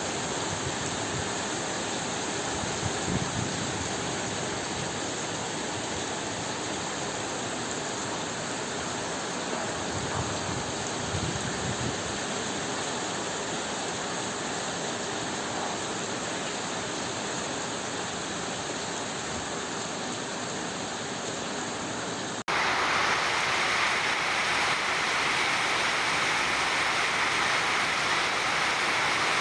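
Steady rushing water noise from flooding, with no clear events in it. It cuts abruptly about 22 seconds in to a louder, brighter rush of water.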